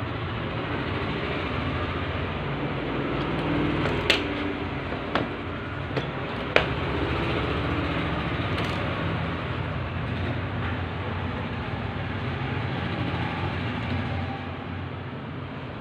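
A few sharp metallic clicks and taps from a screwdriver and the metal parts of a copier fixing unit being handled, three of them standing out between about four and seven seconds in. Under them runs a steady background noise with a low hum.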